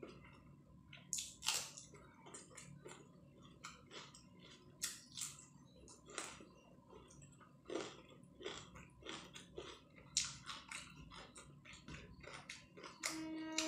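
Close-up chewing of rice and curry, with mouth smacks and clicks at irregular intervals.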